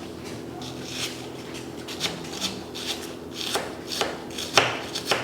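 A knife cutting the head off a raw fish: soft rubbing and scraping broken by a few sharp knocks on the cutting board, the loudest near the end, over a steady low hum.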